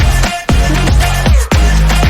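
Background electronic dance music, drum and bass style, with heavy bass and sweeping drops that cut out briefly twice.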